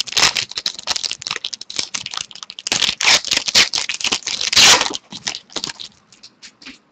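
Wrapper of a hockey card pack crinkling and tearing as it is ripped open: a dense crackle with the loudest rip about four and a half seconds in. A few lighter clicks and rustles follow as the cards are handled.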